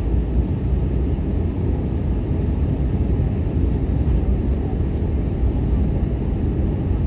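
Steady low rumble of airflow and engines inside the cabin of an Airbus A320 airliner, descending toward landing.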